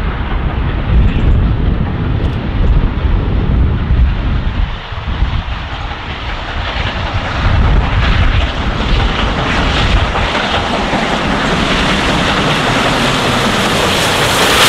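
LNER A4 Pacific steam locomotive Bittern approaching at speed, the roar of its exhaust and wheels on the rails building steadily louder as it draws near, loudest at the end as it comes right up to the microphone. Wind rumbles on the microphone in the first few seconds.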